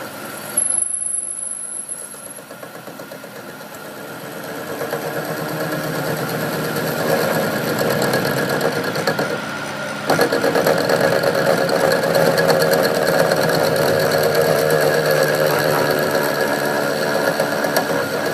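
A machine running steadily with a fine rhythmic churn. It grows louder over several seconds, then steps up suddenly about ten seconds in.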